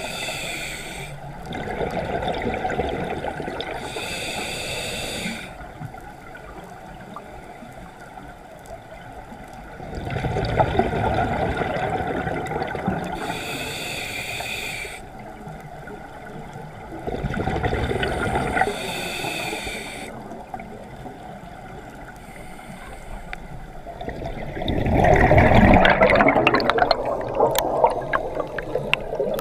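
Scuba regulator breathing heard underwater over several breaths: a hissing inhale through the regulator, then the low gurgling rush of exhaled bubbles. The loudest bubble rush comes about 25 seconds in.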